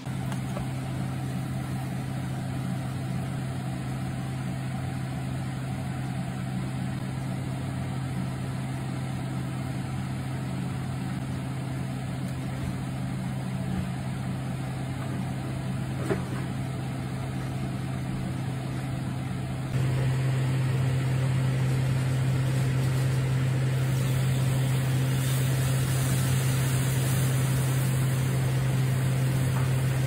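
Steady low mechanical hum, stepping up in level about two-thirds of the way through, with a single light click about halfway.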